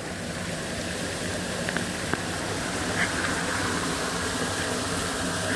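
Heavy downpour, a dense steady hiss of rain pouring down during a sudden storm, with a faint tick or two of something hitting a surface.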